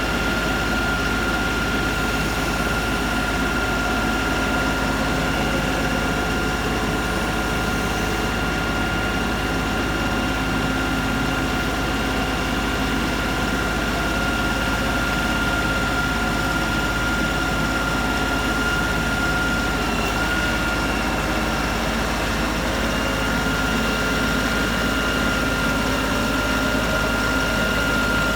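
LS XR 3135 compact tractor's diesel engine running steadily, with a constant high whine over the engine note.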